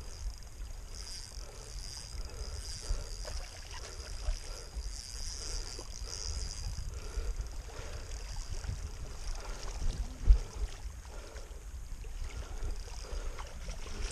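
Wind rumbling on the microphone over water lapping at the shore, with one sharp knock about ten seconds in.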